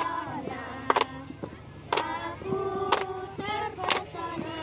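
A group of young girl scouts singing a cheer song together, with sharp hand claps about once a second.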